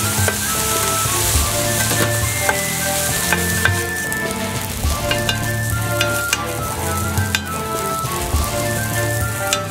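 Fried rice sizzling on a thick iron griddle over charcoal, with a metal spatula scraping and clicking against the plate as the rice is turned and spread. Background music plays underneath.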